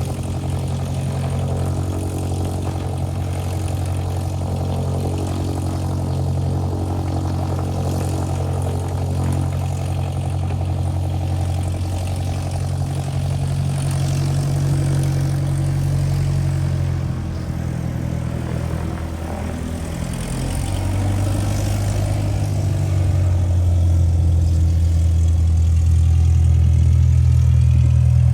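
Cessna 172's piston engine and propeller running steadily at low power. About seventeen seconds in its note dips briefly, then it rises and grows louder over the last several seconds.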